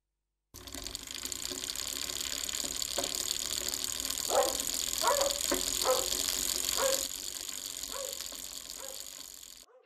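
Bicycle creaking in short squeaks, about six of them through the middle of the sound, over a steady high-pitched hiss of night ambience that fades out near the end.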